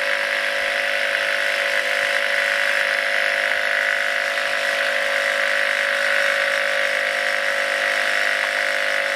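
Home-built single-coil, single-magnet pulse DC motor running at a steady speed under pulsed drive from its controller: an even hum and whine holding several fixed pitches.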